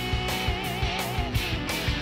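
Background rock music: electric guitar over a steady drum beat, with a held guitar note that wavers in pitch about half a second in.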